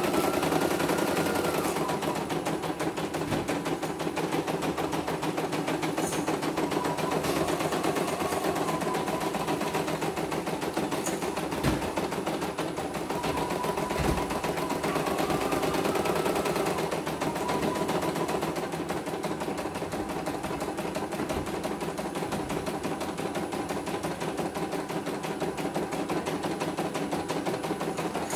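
CNY E900 portable embroidery machine stitching a design: a fast, steady needle clatter, with a motor whine that swells and fades a few times as the hoop moves, and two louder knocks around the middle.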